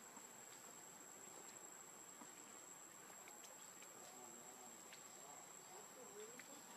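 Near silence outdoors, with a faint steady high-pitched insect drone, typical of a cricket or cicada, and a few faint clicks.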